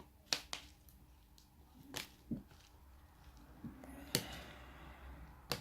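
A handful of short, sharp clicks and taps, about six spread over a few seconds, from small parts and tools being handled during a phone charging-port repair.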